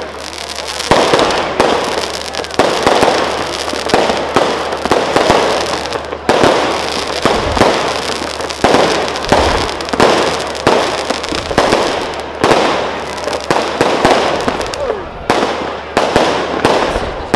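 Aerial firework shells bursting in quick succession, a run of loud bangs about one or two a second, each with an echoing tail.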